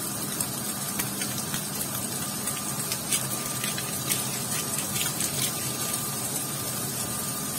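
Kitchen range hood fan running steadily over fish pieces frying in a pan, with faint scattered clicks of a hand spice mill being twisted over the pan.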